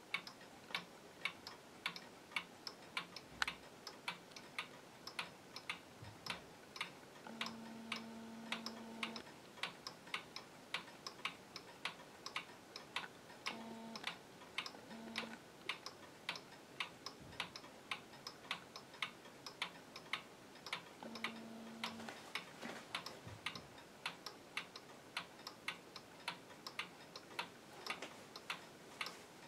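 Pendulum regulator wall clock ticking steadily, a tick-tock at about two ticks a second.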